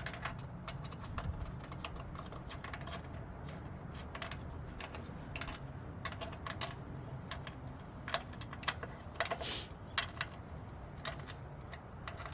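Ratchet wrench clicking in short irregular runs as 10 mm bolts are run in and tightened, with a louder metallic rattle a little past nine seconds, over a steady low hum.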